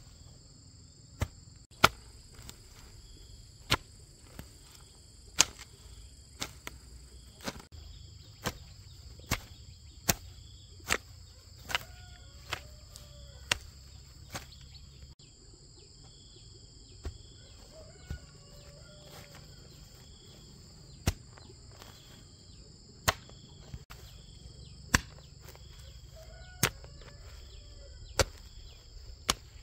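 A series of sharp strikes, about one a second for the first half, then slowing to about one every two seconds, over steady high-pitched insect calls.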